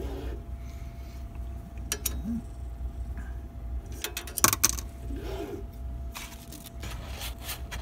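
Small handling sounds as a card is slid under a 3D printer's nozzle and the bed-levelling screw is turned by hand: scattered light clicks and scrapes, with a sharper click about four and a half seconds in, over a steady hum.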